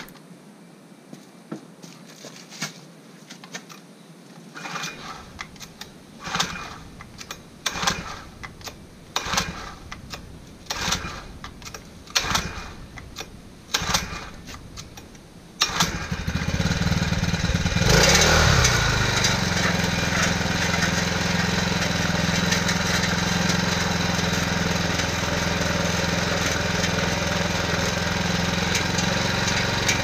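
A string of short knocks and rattles, then about halfway through a small 49cc four-stroke motorized-bicycle engine starts. It revs briefly and settles into a steady idle.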